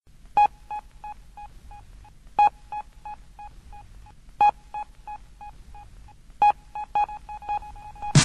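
Electronic beep struck about every two seconds, four times, each followed by a trail of fading echoes about three a second: the sparse intro of an early digital dancehall riddim. Right at the end a loud drum hit brings in the full beat.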